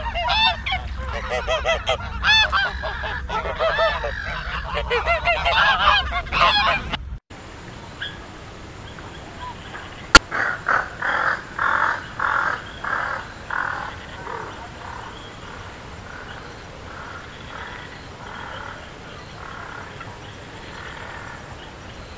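A flock of white domestic ducks calling, many quacks overlapping one another for about seven seconds. It cuts off abruptly, and a few seconds later a sharp click is followed by a run of about seven short bird calls that fade into a quiet outdoor background.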